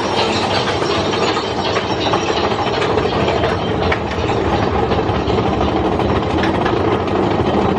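An engine running steadily under a dense, even noise, with no clear change.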